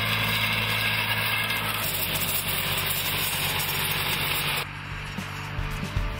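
Tractor engine running steadily while a tractor-mounted vine pre-pruner with rotating disc stacks works the rows. A loud hiss rides over the engine's hum and cuts off abruptly about four and a half seconds in, leaving the engine.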